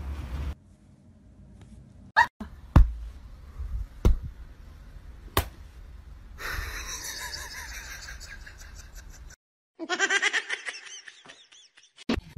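A few sharp knocks, then a person laughing in a quick run of giggles near the end.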